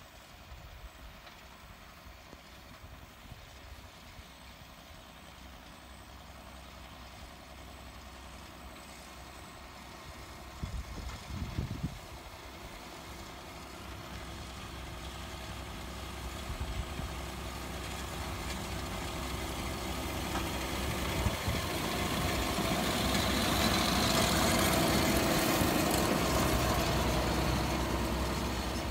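John Deere tractor running under load while pulling a Respiro R3 belt merger through windrowed hay, a steady engine hum mixed with the merger's working noise. It grows louder as the machine approaches, loudest about three quarters of the way through.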